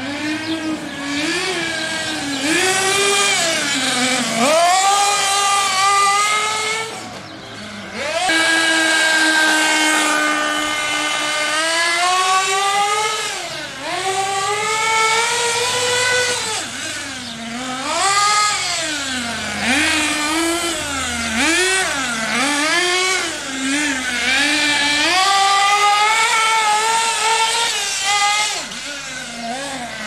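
HPI Trophy 3.5 nitro buggy's small two-stroke glow engine, geared with a long clutch bell, running hard around an asphalt track. Its high, buzzing note keeps rising and falling as it accelerates and backs off through the corners, and it holds one steady high pitch for a few seconds about eight seconds in, flat out on a straight.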